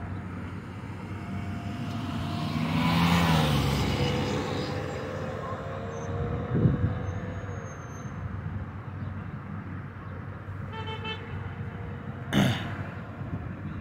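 Road traffic going past a busy intersection. A vehicle passes loudly about three seconds in, a short vehicle horn tone sounds near the end, and a brief sharp noise follows it.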